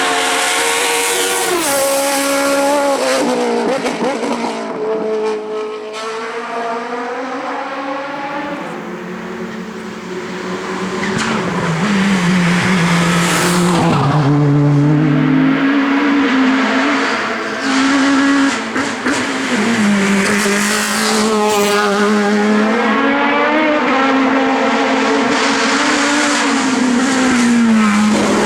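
Hillclimb race car engine revving hard, its pitch climbing and then dropping sharply again and again as it shifts gears and brakes and accelerates through corners.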